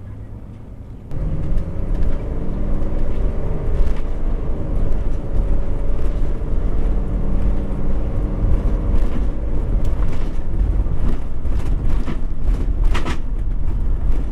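Class C motorhome heard from inside the cab: loud engine and road rumble that comes in abruptly about a second in as it pulls away, with a few sharp knocks and rattles near the end. It is noisy.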